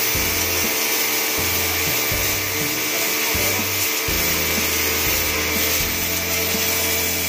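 Electric pressure washer running steadily, its motor and pump humming and whining while the jet sprays water onto a concrete floor. Background music plays over it.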